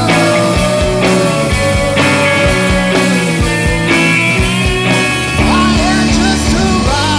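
Rock song playing: an instrumental passage with drums, bass and melodic lines that bend in pitch.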